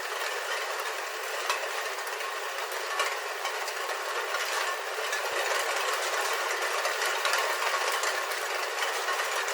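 Rain falling on a roof heard from inside: a steady, dense patter of drops with many small ticks on the roof surface.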